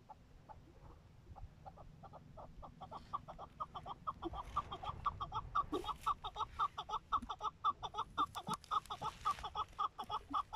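Young first-year chukar partridge calling: a run of short chuk notes that starts sparse, speeds up and grows louder to about five notes a second, and breaks off near the end.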